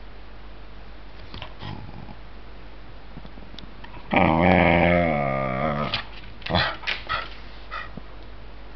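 Cairn terrier growling: one long, wavering grumble of about two seconds, in the 'talking' manner of a dog being teased. A few short, sharper sounds follow about a second later.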